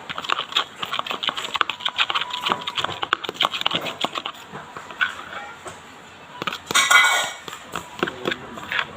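A spoon stirring glue into sugar water in a bowl, with rapid little scraping clicks that thin out after about five seconds. A louder, short sound comes about seven seconds in.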